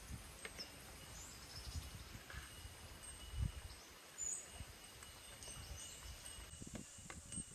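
Quiet outdoor ambience: faint bird chirps and a thin steady insect tone over a low hush, with soft handling bumps and one dull thud about three and a half seconds in.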